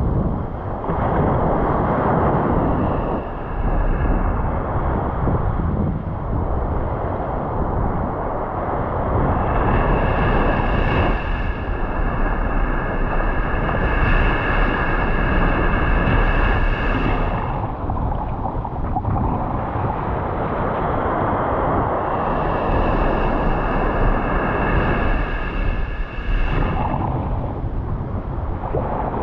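Wind rumbling on the microphone over surf. A steady high-pitched tone comes and goes twice, lasting several seconds each time.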